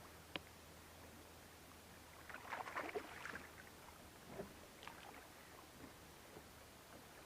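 Faint water sounds around a kayak hull: a sharp click, then a brief cluster of crackling splashes about two and a half seconds in, and a couple of smaller splashes later.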